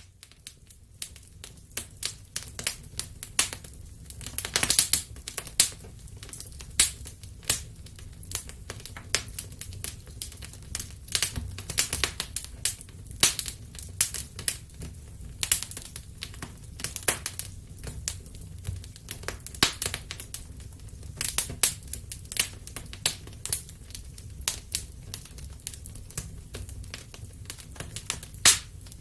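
Wood fire crackling in a fireplace: irregular sharp pops and snaps, some louder, over a steady low rumble of the flames.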